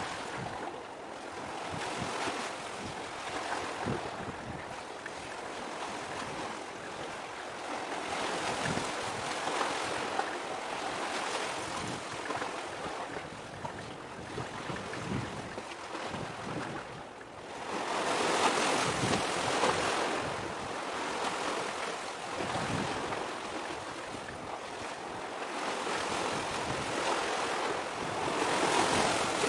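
Sea waves washing in steadily, with some wind. The noise swells louder about eighteen seconds in and again near the end.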